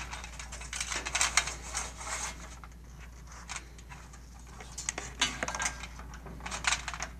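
Scattered light clicks and rustles of an electrical cable being pulled through the frame of an infrared barrier tower, the cable knocking and sliding against the frame.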